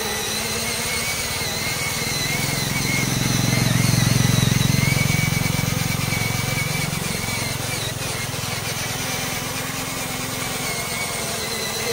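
Small electric drive motor of a homemade battery-powered ride-on toy truck whining steadily as the truck drives over dirt, its pitch wavering slightly with the load. A deeper rumble swells and fades around four to six seconds in.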